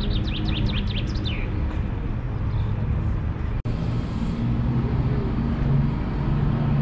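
A small bird gives a quick run of high chirps in the first second and a half, over a steady low rumble. About three and a half seconds in, the sound cuts abruptly, and a steady, slightly louder low mechanical hum carries on.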